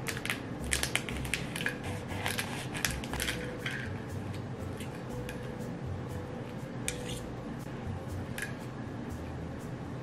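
Crisp, flaky layers of a sfogliatelle pastry crackling and crunching as a knife and fork cut through them. There is a quick run of crackles over the first few seconds, then a couple of single cracks later.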